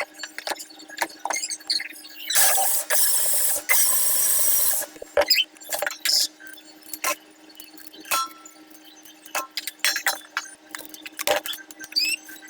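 Kitchen handling sounds: a string of sharp clicks and clinks of utensils and containers, with a loud rushing hiss lasting about two seconds a few seconds in.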